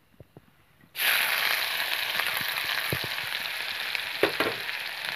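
Chopped onion dropped into hot oil and cumin in a wok, breaking into a loud sizzle about a second in that then runs on steadily. A few light knocks come about four seconds in.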